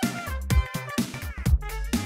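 Upbeat electronic dance-style background music with a steady beat: a thudding bass drum under bright melodic notes.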